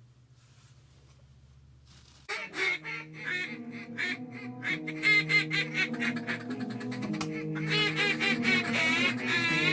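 Music with sustained chords starts abruptly about two seconds in, and rapid, repeated honking waterfowl calls sound loudly over it, building toward the end.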